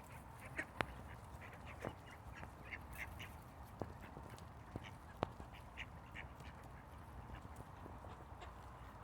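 A group of ducks quacking in short, scattered calls, with a few sharp clicks among them and a steady low rumble underneath.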